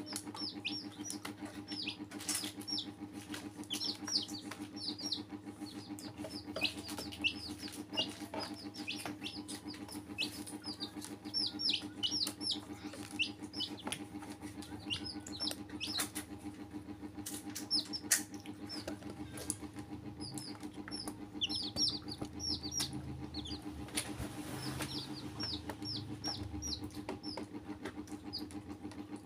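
Domestic chicks peeping over and over: short, high calls that slide downward in pitch, several a second, over a steady low hum with occasional sharp clicks.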